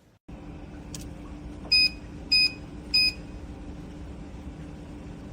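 Electronic keypad of a steel security safe giving three short beeps of the same pitch, evenly spaced, as buttons are pressed, with a faint click just before. A steady low hum runs underneath.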